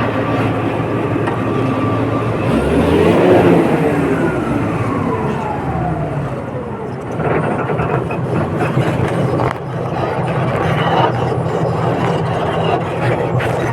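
Komatsu D85ESS crawler bulldozer's diesel engine running steadily under work. A few seconds in, a whine falls in pitch.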